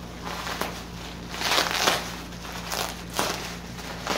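Plastic bubble wrap crinkling and rustling in bursts as it is handled and pulled apart by hand.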